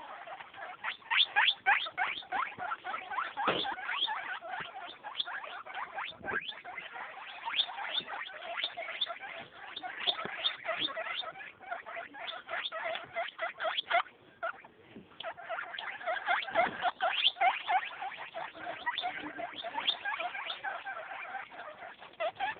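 Guinea pigs squeaking in quick, short, high calls, several a second, with a brief lull about two-thirds of the way through.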